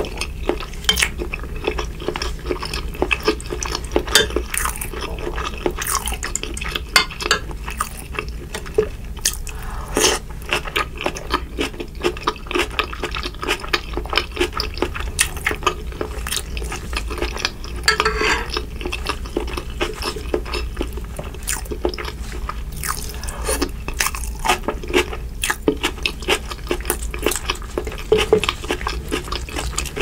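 Close-miked wet handling of shrimp in butter sauce: gloved fingers squishing, peeling and dripping sauce-soaked shrimp, a metal spoon clinking and scraping in a glass baking dish, and some chewing. The sound is a dense run of short clicks and splats.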